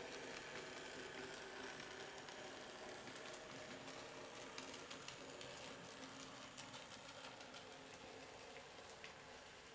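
Faint whir of an N gauge Dapol Mallard model locomotive's motor running along the track, with light clicks from the wheels, slowly fading as it moves away.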